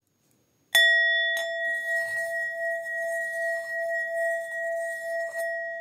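A metal singing bowl struck once less than a second in, then ringing on with a steady, clear tone that slowly fades. Two light knocks sound over the ringing, about half a second after the strike and near the end.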